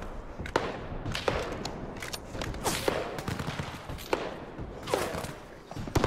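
Battle gunfire: scattered shots at irregular spacing, roughly two a second, over continuous background noise.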